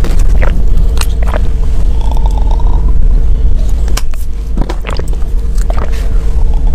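Sharp clicks and taps of small soda cans being handled, picked up and lifted to the mouth, with mouth sounds, over a steady low rumble and a faint steady hum.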